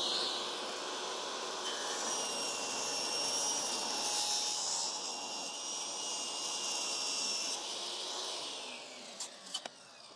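Hercules 10-inch compact table saw running and ripping a 2x4 lengthwise with its 40-tooth stock blade, played back sped up two and a half times. The saw runs steadily with a high whine through the cut, then winds down about eight seconds in, followed by a few clicks.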